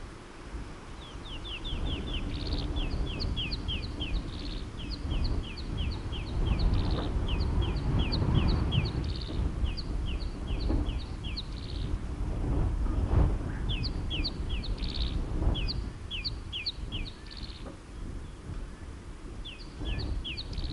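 A bird calling in fast runs of short, high, downward-sliding chirps, in several phrases with pauses between them. Under the calls runs an uneven low rumble of wind on the microphone.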